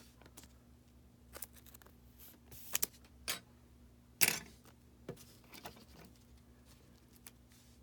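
Baseball trading cards being handled: a card slid into a plastic sleeve and cards flipped through, making a string of light clicks and rustles, the loudest about four seconds in. A faint steady hum runs underneath.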